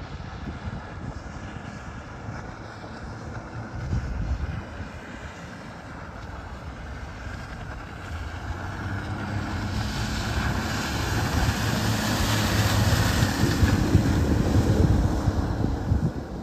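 Outboard motor on an inflatable dinghy running at speed. It grows louder as the boat comes close and passes, with hissing spray from the hull and wake, then drops away near the end.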